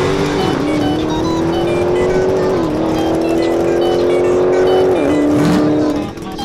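Dodge Demon and a rival drag car at full throttle, accelerating side by side down the strip. The engine note climbs and drops back at upshifts about half a second, two and a half and five seconds in. The sound falls away suddenly about six seconds in.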